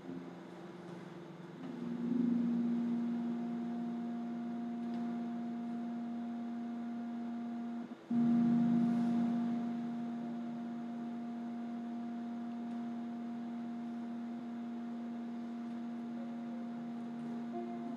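A steady, sustained low drone tone with a fainter higher overtone. It swells up about two seconds in, cuts out for a moment near the middle, then returns and holds evenly.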